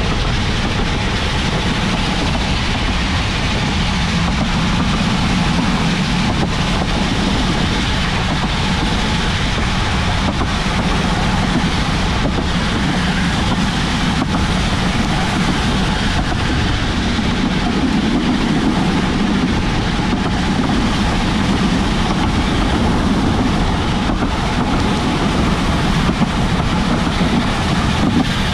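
Steady rushing of wind on the microphone with rolling road noise from a bicycle moving at speed, with a few faint knocks.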